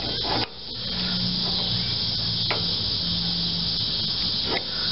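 Cicadas singing in the surrounding trees, a steady high buzz. A couple of faint clicks come from an adjustable wrench working the carburetor fitting, about halfway through and near the end.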